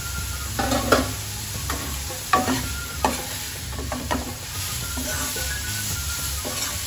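Grated carrots sautéing in ghee in a non-stick kadai with a steady sizzle, stirred with a steel spoon that knocks and scrapes against the pan several times.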